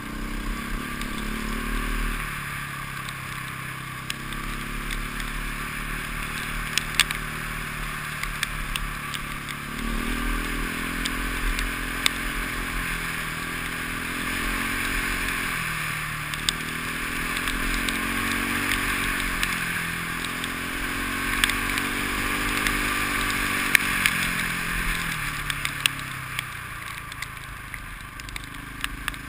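KTM enduro motorcycle engine under way, its pitch climbing and dropping again and again with throttle and gear changes, with a steady rush of wind noise and a few sharp clicks.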